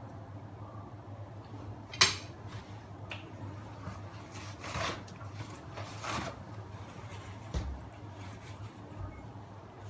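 Handling noises over a steady low hum: a sharp clack about two seconds in, two longer scraping, rustling sounds, and a soft thump near the end.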